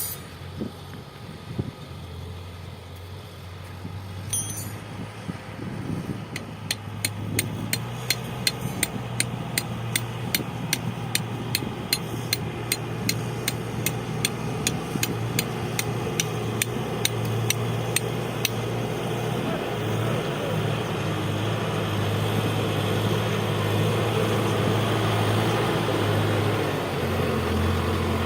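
Heavy machine's engine running steadily and growing louder through the second half, with a rapid, regular clicking, about two or three clicks a second, from about seven seconds in until about eighteen seconds.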